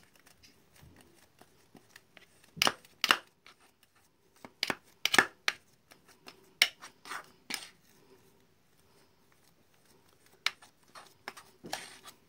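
Metal spoon scraping and clinking against an enamel plate in irregular strokes while stirring a thick, crumbly bait paste of mashed fish and tempe.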